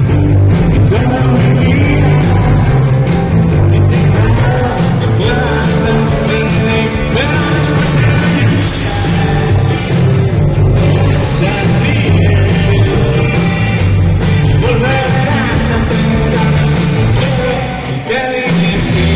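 Live rock band playing a song with a lead vocal over drums and amplified instruments, the sound carried by a big stage PA; the band drops out briefly near the end before coming back in.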